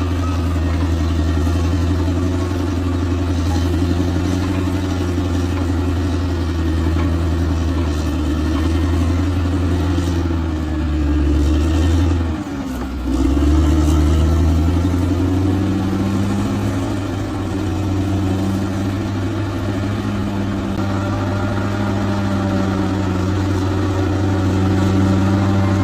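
Bulldozer's diesel engine running steadily under work, dipping briefly about halfway through before picking back up.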